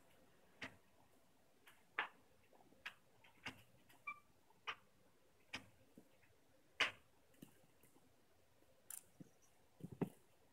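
Faint, sharp clicks and crunches, irregular and about one or two a second, from a guinea pig nibbling and nosing through dry timothy hay, with a short cluster of knocks near the end.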